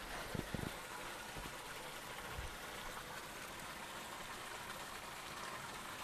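A steady, faint hissing noise with no distinct events, and a few soft low bumps in the first second.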